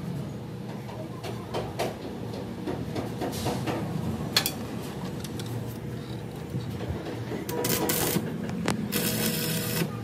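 Stick (arc) welding on a steel wheel rim: scattered metal clinks of tools being handled, then near the end the welding arc crackles in two short runs as the electrode is struck against the steel. A steady low hum runs underneath.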